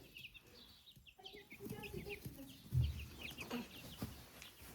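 Baby chicks cheeping, many short high peeps overlapping. A dull thump about three seconds in.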